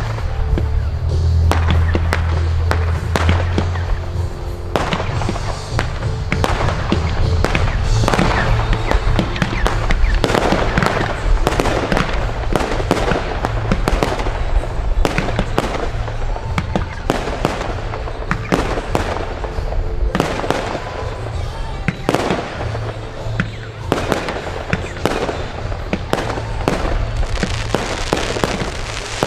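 Fireworks battery firing a rapid, continuous series of launch bangs and bursts, over music with a steady bass line underneath.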